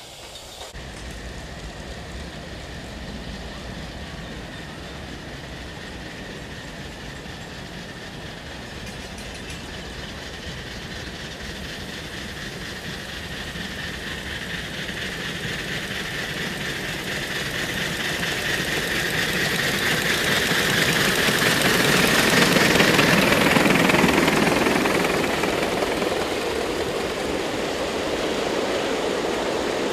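A live-steam model train running on the track, coming closer and passing nearby about three quarters of the way through, then moving away. A faint high steady tone runs through the noise of the run.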